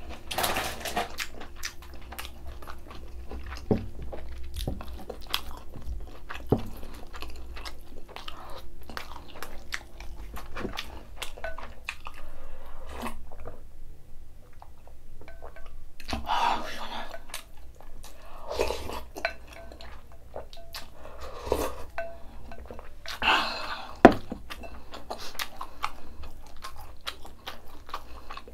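Close-miked eating sounds: chewing with small clicks of chopsticks and spoon against a bowl, then several short slurps and gulps as rice in ice water is drunk from the bowl. A single sharp clack near the end is the loudest sound.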